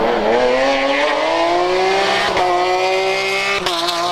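Race car engine accelerating hard up a hill climb course, its pitch rising steadily, with two brief cuts about two and a half and three and a half seconds in, like quick gear changes.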